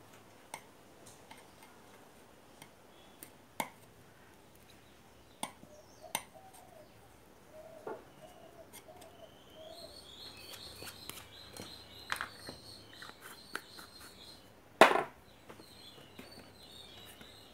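Faint scattered taps and scrapes of a small stick spreading thermal paste onto an amplifier's transistor mounting pads. Birds chirp in the background from about ten seconds in, and a single louder knock comes near the end.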